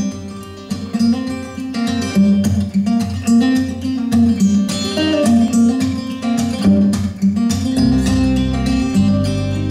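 Acoustic guitar intro of a recorded song, played through Wilson Audio WATT/Puppy 5.1 loudspeakers driven by a Moon i5 integrated amplifier and heard in the listening room. Low bass notes join about eight seconds in.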